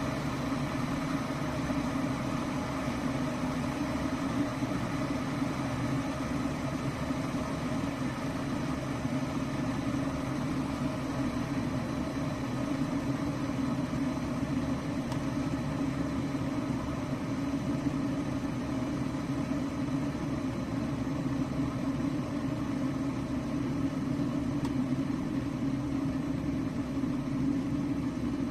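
COMFEE 1.7 L stainless steel electric kettle heating water toward its 190 °F setting: a steady rumble and hiss from the heating water.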